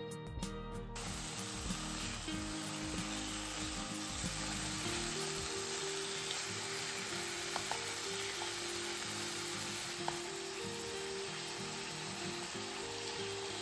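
Slices of pork neck sizzling steadily as they fry in a hot frying pan without oil, the sizzle starting about a second in. A few light clicks of tongs turning the meat.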